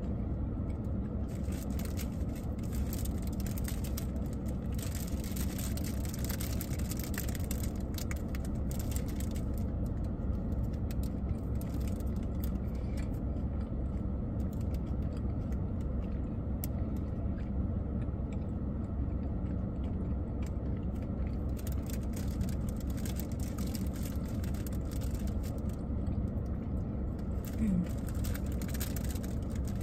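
Steady low rumble of a parked car idling, heard from inside the cabin. At intervals a plastic bakery bag crinkles as bread is pulled from it, and there is a short hum of voice near the end.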